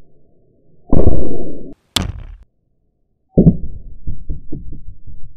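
Slow-motion replay audio of 17 HMR rifle shots hitting a ballistics gel block. A loud, deep thump comes about a second in and cuts off abruptly, with a sharp crack just after it. A second deep thump follows about three and a half seconds in and trails off in a run of fading thumps.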